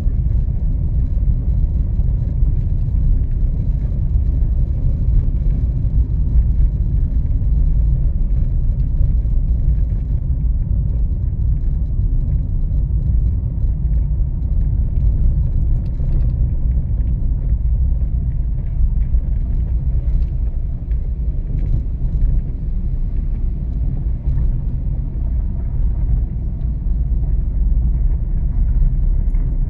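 Car driving through city streets: a steady low rumble of road and engine noise.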